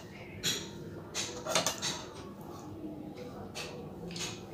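Close-miked eating sounds of a person eating rice and curry by hand from steel dishes: a handful of short, sharp smacks and clicks of chewing and handling food, spread out with small gaps between them.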